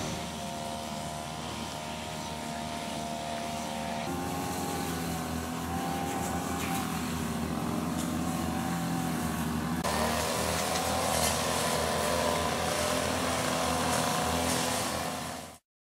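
A vehicle engine running steadily. Its tone shifts abruptly about four and ten seconds in, and it cuts off suddenly near the end.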